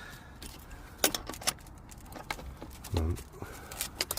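Sharp metallic clicks and clinks, a cluster about a second in and more near the end, as the cleaned heat pump strainer is screwed back into its housing.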